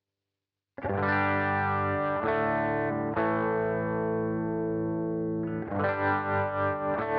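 Electric guitar played through a Boss GT-1 multi-effects processor. After a moment of silence, chords are strummed and left to ring, a new chord every second or so. Near the end the sound starts pulsing in volume about three times a second.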